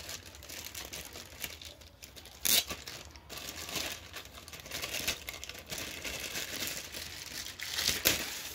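Clear plastic bag crinkling and rustling as hands pull it off a soundbar, with louder sharp crackles about two and a half seconds in and again near the end.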